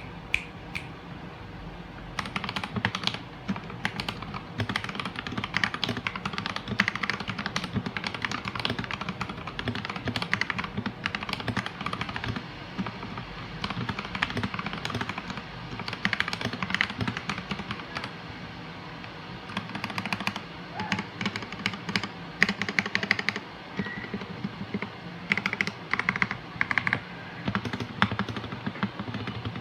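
Akko 3068B 65% mechanical keyboard with stock Akko Jelly Pink linear switches being typed on: a fast, continuous run of keystroke clacks that starts about two seconds in, with a short pause a little past the middle.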